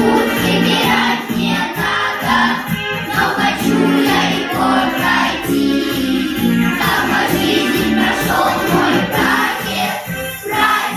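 A children's choir singing a song with musical accompaniment, held notes changing every half second or so.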